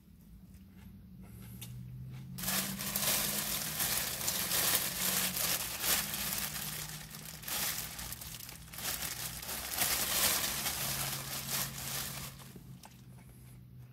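Plastic wrapping crinkling loudly as a wrapped bun is handled and unwrapped. It starts a couple of seconds in, pauses briefly twice, and stops near the end.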